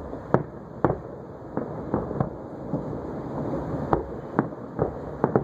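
Aerial fireworks shells bursting: a dozen or so sharp bangs at irregular intervals, several in quick succession near the end.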